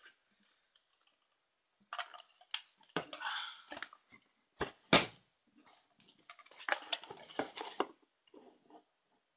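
Rummaging through a box of small hard items: an irregular run of clicks, rattles and clatter, with one sharp knock about five seconds in.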